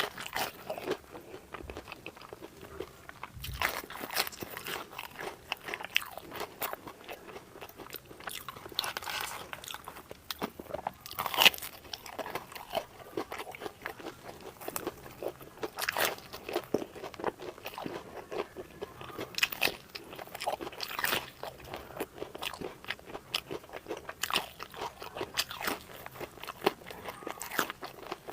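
Close-miked eating: biting into and chewing crunchy food, with frequent irregular crisp crunches and one louder crunch about eleven seconds in.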